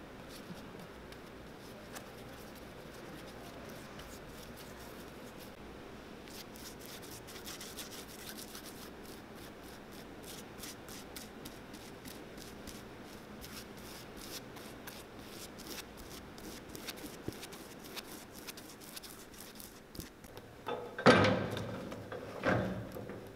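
A bristle brush scraping as glue is spread over a leather sole and the cork-filled bottom of a boot, in a run of fine quick strokes. Near the end, two loud bursts of noise as the boot is set into a sole press.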